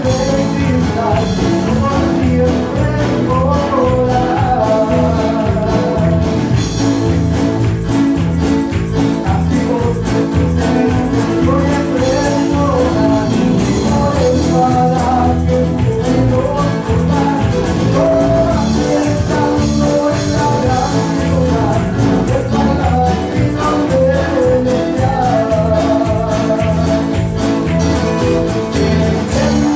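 Live church band playing an upbeat gospel song on electric guitars, bass, keyboard and drum kit, with a voice singing over it, heard through the room of a small hall.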